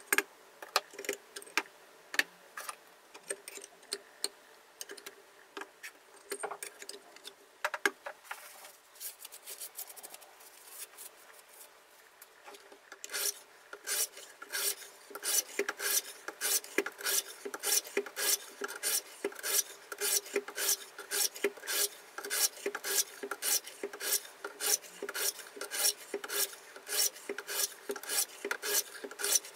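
Diamond sharpening stones of a KMFS Rival sharpener rasping along a clamped knife blade in quick, even strokes, about two a second, starting about 13 seconds in. Before that, scattered light clicks and taps as the stone holders are handled and set up.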